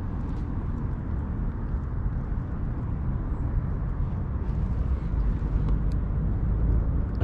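Wind buffeting the microphone: a steady low rumble, with a few faint ticks about five to six seconds in.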